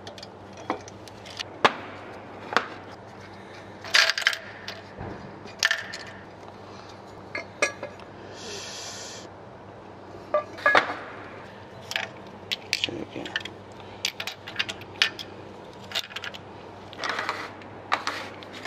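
Metal engine parts clinking and scraping as camshaft bearing caps and bucket tappets from the straight-six cylinder head are handled and set down on a metal tray: irregular sharp clinks, with a brief scrape about eight seconds in.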